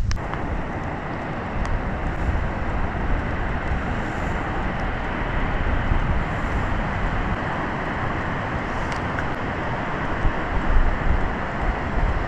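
Steady rushing road noise of a vehicle driving, with no clear engine note.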